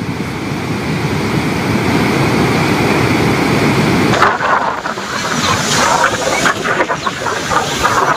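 Water rushing out through the open spillway gates of the Tungabhadra dam as a steady, loud rush of falling water. About four seconds in it turns brighter and more splashy.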